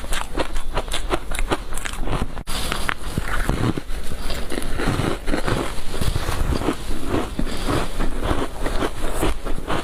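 Ice coated in matcha powder being bitten and chewed, giving a quick, irregular run of crisp crunches and cracks.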